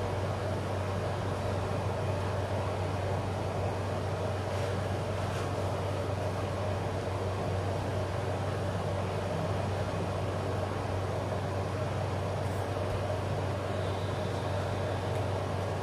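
Steady low mechanical hum of an electric appliance running in the room, even and unchanging, with a few faint light ticks.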